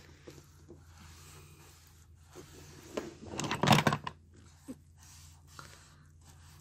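A wad of tissue rubbed and pressed on a plastic toy road track: soft rustling and scraping with a few light knocks from handling, loudest for about a second a little after three seconds in.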